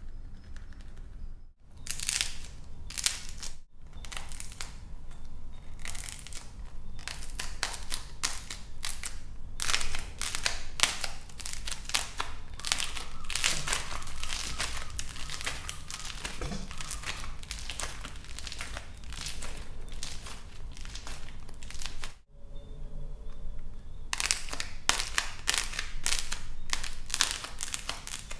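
Hands crushing hardened clay pumpkin figures: a dense run of sharp crackles and crunches as the dried clay crust breaks up, with a couple of brief pauses.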